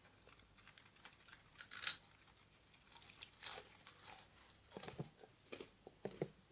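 Faint crunching of crisp food being bitten and chewed, irregular crackles that come thicker near the end.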